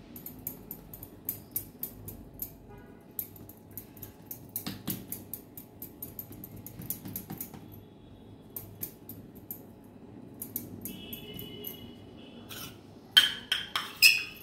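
Many light clicks and scrapes of kitchen utensils while food is being worked by hand. Near the end come a few louder metal clinks with a brief ring.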